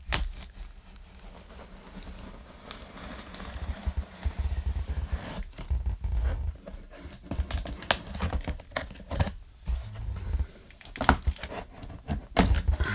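Cardboard and plastic packaging being handled: rustling and crinkling with irregular sharp clicks and a few dull thumps as a boxed unit is worked out of its box.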